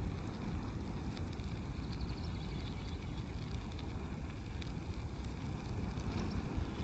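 A fire burning a recliner: a steady low rushing noise with faint scattered crackles.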